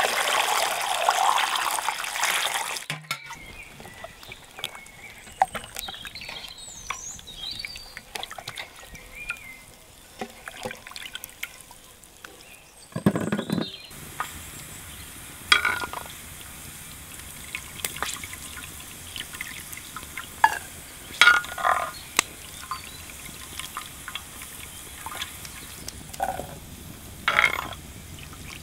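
Water poured over peeled onions in a metal bowl for the first few seconds. Later, diced sheep tail fat sizzling on a sadj, with a metal spoon clinking several times as the rendered cracklings are scooped into a metal bowl.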